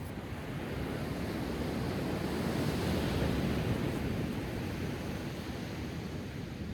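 Sea waves washing on the shore, one surge swelling to its loudest about halfway through and then falling back.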